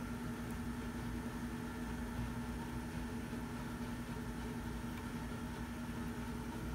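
Steady low hum with one constant tone and a faint rumble underneath: room background noise from an unseen running appliance.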